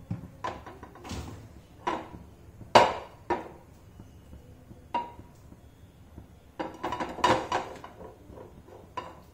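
Metal frying pan knocking and clinking against a gas stove's burner grate as it is lifted and tilted to spread oil: a string of irregular sharp knocks, the loudest about three seconds in, some with a short metallic ring.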